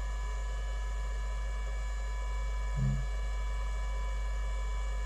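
Steady low electrical mains hum with faint steady high tones over it, no speech; a brief low murmur sounds once near three seconds in.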